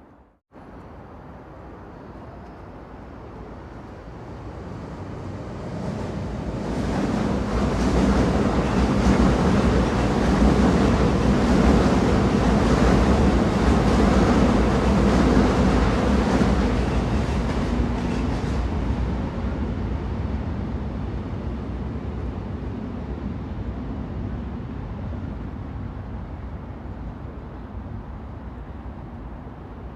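Train rumble with a short cut to near silence just after the start. The rumble swells over several seconds to a loud rushing peak that lasts about ten seconds, then slowly dies back down.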